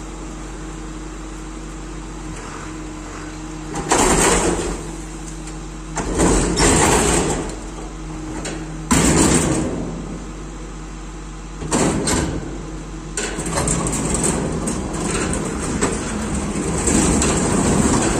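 Rear-loading garbage compactor truck with its engine running steadily while the hydraulic bin lifter tips a steel dumpster bin into the hopper. Loud bursts of rattling and clanging come about four, six and nine seconds in as the bin is shaken out, another near twelve seconds as it is lowered, and a longer stretch of grinding noise over the last few seconds.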